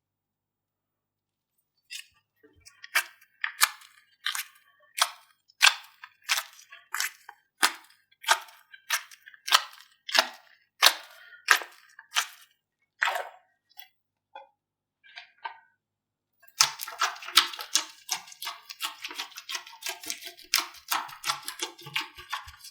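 Slime being worked by hand: sharp, sticky pops about one and a half times a second, starting about two seconds in, then from about two-thirds of the way through a dense run of crackling.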